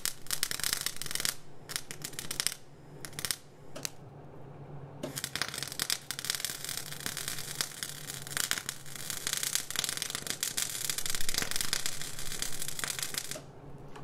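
Electric welding arc crackling and sizzling: a few short bursts in the first four seconds, then a steady bead of about eight seconds that cuts off near the end.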